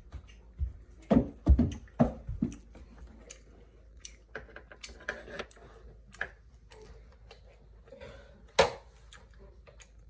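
Scattered small clicks and light knocks with room echo, and a few short muffled voice-like sounds in the first two seconds or so.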